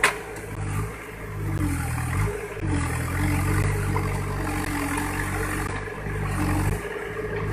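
Case 580 Super M backhoe loader's diesel engine running under hydraulic load, its pitch dipping and recovering several times as the arms work to free the machine from mud. A sharp clank comes right at the start.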